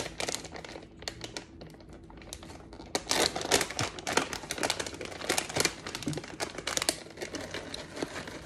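Plastic pouch of sliced almonds crinkling and crackling as it is opened and handled, loudest in the middle.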